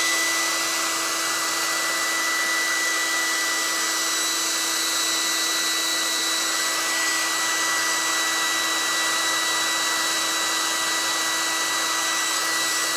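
Handheld hair dryer running steadily on wet paint: a constant rush of air over a high, even motor whine.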